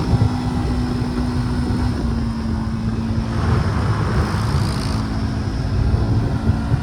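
Four-wheeler engine idling steadily, its pitch dropping slightly about two seconds in, with wind rumbling on the microphone.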